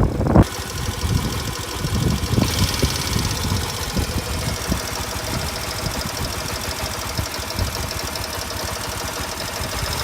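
Honda Super Cub's bored-up 105cc single-cylinder engine running steadily, with rapid clicks throughout: the mystery clicking (kachi-kachi) noise the owner is trying to trace. A short loud noise in the first half second; the engine note grows brighter about two and a half seconds in.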